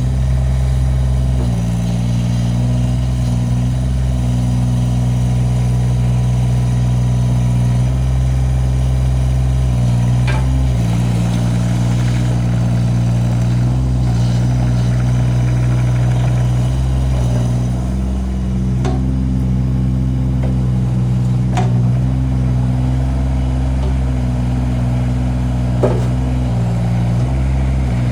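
Kubota U17-3 mini excavator's three-cylinder Kubota diesel engine running steadily, its note shifting slightly now and then, with a few faint clicks.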